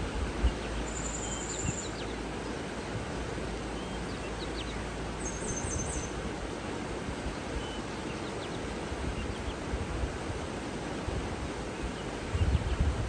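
Steady rushing water with a few faint, high bird chirps and short trills over it, and low rumbles near the end.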